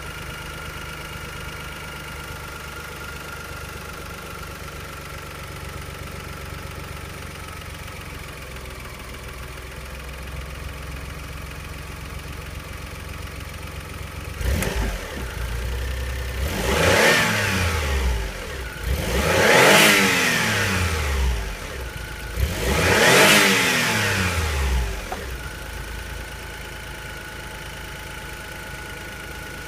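Daihatsu Atrai Wagon's 660 cc three-cylinder engine idling steadily. About halfway through it is revved three times, a few seconds apart, each rev rising quickly and falling back, and then it settles to idle again. It revs up freely and idles quietly with no abnormal noise, an engine in top condition.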